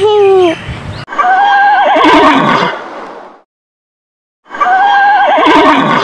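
A horse whinnying twice: the same neigh, wavering in pitch and trailing off, heard about a second apart. A person's voice holds a note in the first half-second.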